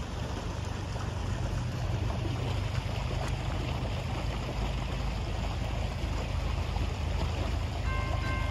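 Steady hiss of rain with a low rumble of wind. Near the end, a railroad crossing's electronic bell (NEG E-Bell) starts ringing as the crossing signals activate for an approaching train.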